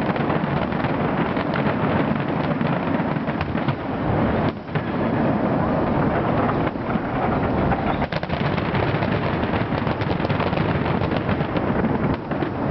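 Aerial fireworks shells bursting in quick succession, a dense barrage of overlapping bangs and rumble with a brief lull about four and a half seconds in and another near the end.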